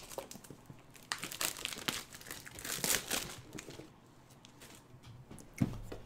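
Plastic wrapper being torn and pulled off a cardboard card-game box, crinkling in irregular bursts that are busiest in the first half. A low thump near the end.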